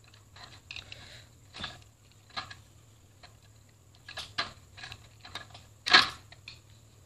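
Plastic housing of a hand mixer being pried open with a tool: scattered sharp clicks and short scrapes, with one loud click about six seconds in.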